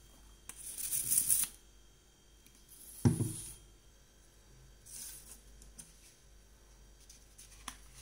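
Sheets of craft paper being handled: rustling bursts, the first about half a second in, a second with a light thump on the table about three seconds in, and a fainter one around five seconds, then a small click near the end.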